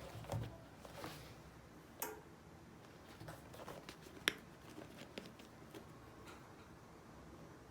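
Faint, scattered small clicks and taps, like objects being handled, with one sharper click about four seconds in.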